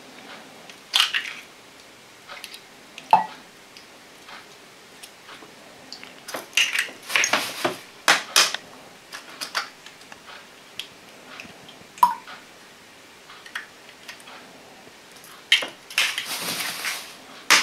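Eggs being cracked and separated by hand: scattered sharp cracks of eggshells, with crinkling of a plastic bag of eggs in louder bursts about seven seconds in and again near the end.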